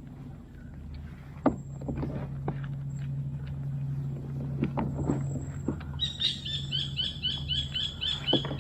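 A steady low hum like a boat engine running, with scattered sharp knocks of gear against a kayak, the loudest about a second and a half in. From about six seconds in a bird calls in a quick run of repeated high chirps, about four a second.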